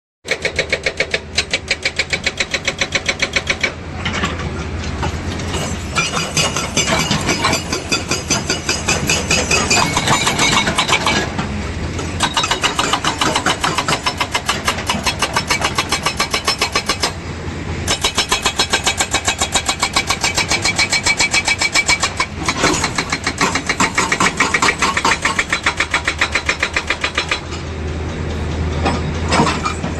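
Engine running with a rapid, even chugging beat. The beat fades for a moment several times, then comes back.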